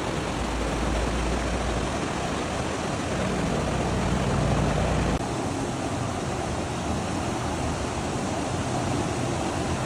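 Steady rumble and rushing noise of a moving passenger train, heard from on board; the sound changes abruptly about five seconds in.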